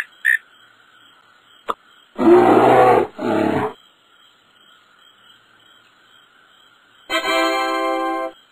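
The last two cricket chirps, then a bear growling in two rough bursts about two seconds in. Near the end comes a steady held musical note lasting just over a second.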